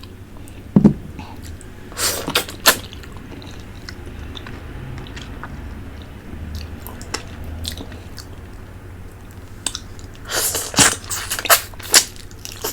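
Close-miked eating of a fish head: wet slurping and smacking in short bursts, clustered near the start and again near the end, with quieter chewing between.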